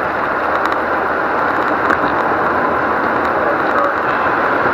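Steady, loud road noise inside a moving car, picked up by the dashcam: tyres on the road and the engine running.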